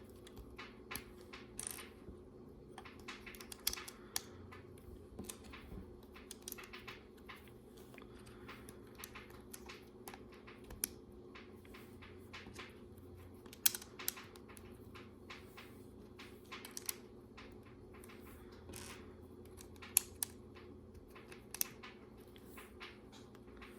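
Small plastic LEGO pieces clicking and clattering as they are handled and pressed together, in irregular light taps with a few sharper clicks, over a faint steady hum.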